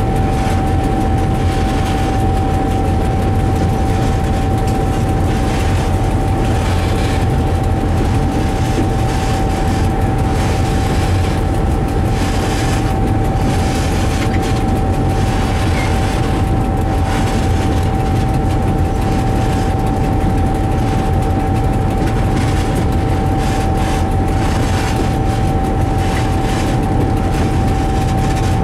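Diesel locomotive running steadily under way, heard from inside its cab, with a constant high-pitched whine over the low engine sound.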